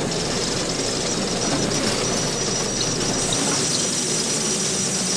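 Grinding and squealing of the washbasin column's stone-and-metal mechanism turning and sliding open, a continuous scraping that grows brighter about three seconds in.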